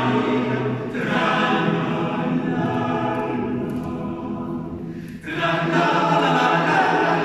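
Male voice choir singing a cappella, a conductor leading, with short breaks between phrases about a second in and again about five seconds in.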